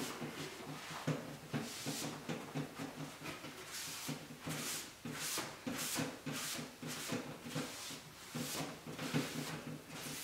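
Cloth rag rubbing over a painted wooden cabinet door, wiping off excess furniture wax: a run of short swishing strokes, quicker in the middle, about two a second.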